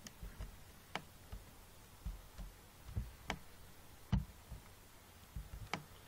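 A few faint, sharp clicks from a computer mouse and keyboard, roughly every second or two, with soft low thumps between them over quiet room tone, as code is pasted into an editor.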